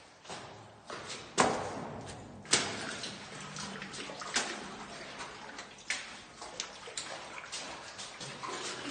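Footsteps scuffing and splashing over a wet cave floor in shallow water, with irregular sharp knocks and scrapes. The loudest knocks come about a second and a half in and again about a second later.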